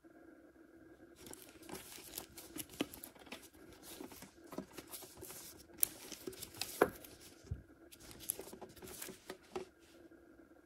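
Plastic shrink wrap being torn and crinkled off a metal lunch box tin. The rustling starts about a second in, carries several sharp clicks, pauses briefly about eight seconds in, and stops shortly before the end.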